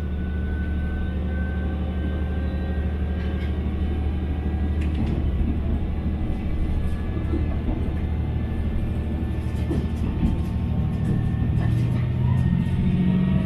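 Train running, heard from inside the carriage: a steady low rumble with faint thin whining tones above it and a few light clicks.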